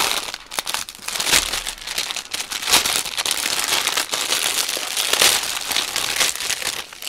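Clear plastic bag of diamond-painting drill packets being handled and opened, crinkling and crackling with many sharp crackles.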